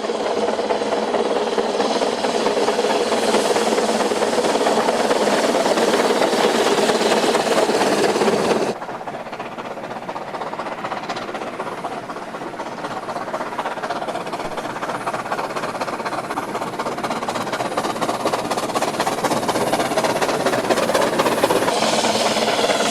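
Steam locomotive sound recorded from the Ffestiniog Railway's George England 0-4-0 saddle tank 'Prince': a steady rush of steam and hiss. About nine seconds in the sound cuts abruptly to a quieter recording that slowly grows louder.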